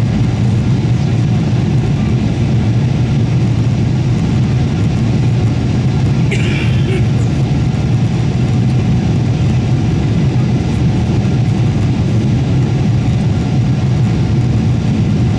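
Steady low rumble at an even level, with a brief higher-pitched sound about six seconds in.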